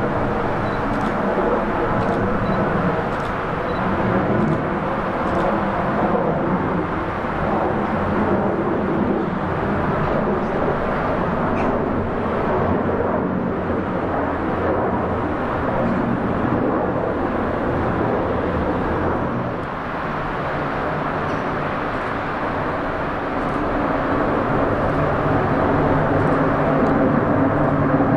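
Steady rumble of distant jet aircraft engines and motorway traffic at a busy airport, dipping slightly about two-thirds of the way through and growing louder near the end.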